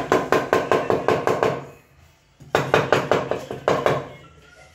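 Rapid tapping on a stone backsplash strip as it is set along the countertop: two runs of quick, ringing knocks, about six or seven a second, with a short pause between.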